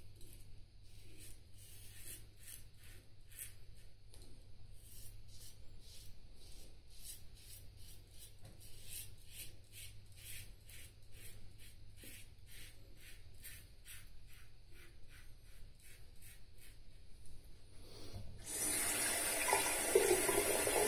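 Feather Popular double-edge safety razor scraping through lathered stubble in short strokes, about two a second. Near the end a tap is turned on and water runs into the sink, louder than the razor.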